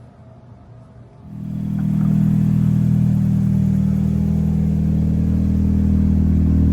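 Car engine running steadily with an even low drone, coming in suddenly about a second in.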